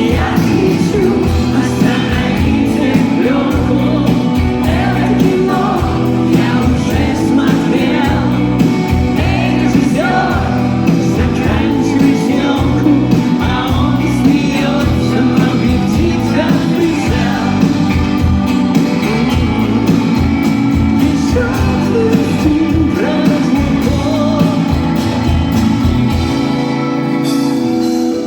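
Live rock band playing a song, with singing over the music.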